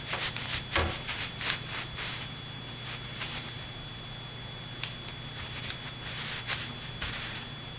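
Rag rubbing over the frame of a SIG P226 pistol, wiping off solvent-loosened residue in short irregular strokes, busiest in the first few seconds and sparser after.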